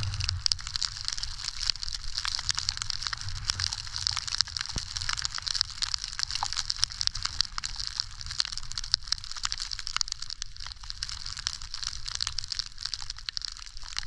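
Snow hissing and crackling under a skier's moving gear during a descent through fresh snow: a steady high hiss full of small crackles over a low rumble.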